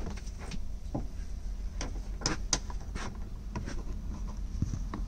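Scattered small clicks, taps and rubbing as a plastic interior cab trim panel and its seat belt are worked into place by hand, over a steady low hum.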